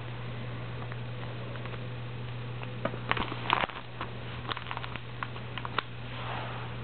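Scrapbook binder pages being handled and turned. A run of small clicks and crinkles starts about three seconds in, and a soft swish of a page comes near the end, over a steady low hum.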